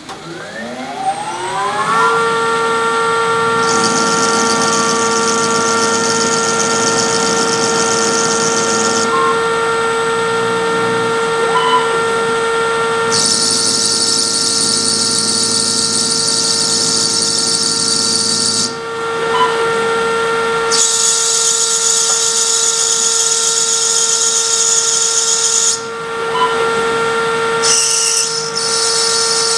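Homemade CNC lathe spindle spinning up, its whine rising over about two seconds and then holding a steady pitch. A high hissing cutting noise comes in stretches of several seconds as the tool makes turning passes on 5/16" brass hex bar.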